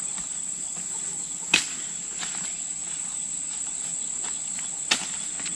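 Insects drone steadily at one high pitch, with two sharp knocks about three seconds apart and a few fainter clicks between them.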